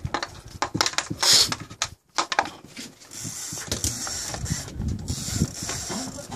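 Conventional fishing reel being cranked on a jigging rod: a rapid run of mechanical clicks and rattles. About three seconds in, a steady hiss joins the clicking.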